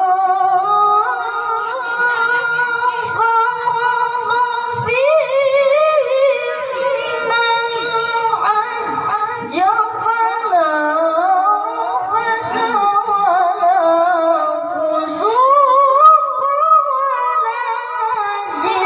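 A boy's high voice reciting the Quran in melodic tilawah style into a microphone, holding long ornamented notes with wavering runs, and climbing to a higher pitch about 15 seconds in.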